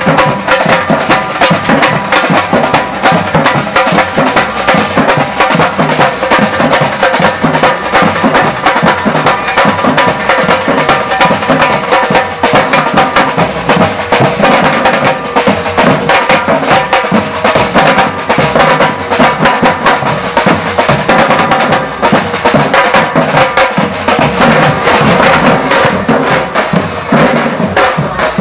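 Samba-reggae drum band playing live: large bass drums and higher-pitched drums beating a dense, steady rhythm together.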